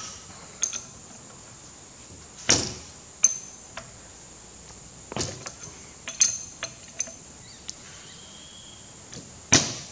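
A steel 9/16 spanner clinking against the delivery valve holders of a CAV rotary diesel injection pump as they are worked loose: about half a dozen sharp metallic clanks, each with a brief ring, the loudest about two and a half, six and nine and a half seconds in.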